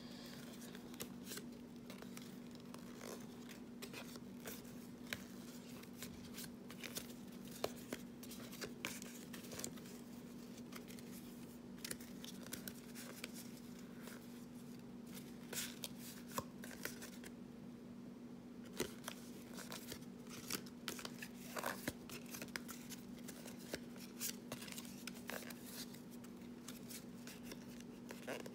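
Trading cards being flipped through one at a time in the hand: a steady run of light, irregular clicks and slides of card stock, over a faint constant low hum.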